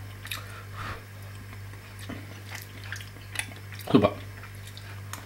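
A metal fork clicking and scraping on a plate of rice, with one louder scrape about four seconds in, over a steady low hum.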